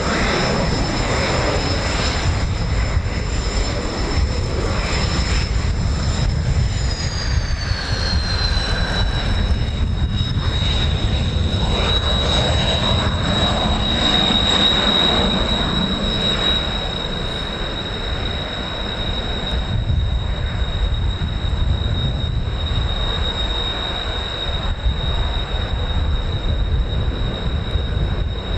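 Strong wind buffeting the microphone, over the steady high whine of Blue Impulse Kawasaki T-4 jet engines running. The whine drops in pitch about seven seconds in, then holds steady.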